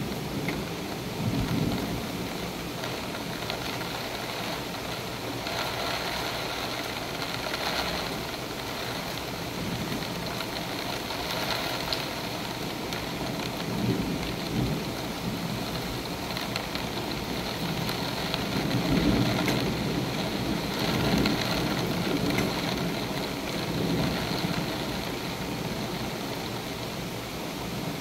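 Thunderstorm: steady rain with low rumbles of thunder rolling in several times, the loudest about two-thirds of the way through.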